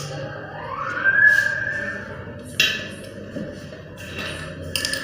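Background music with a tone that glides upward and then holds, with a couple of sharp clicks.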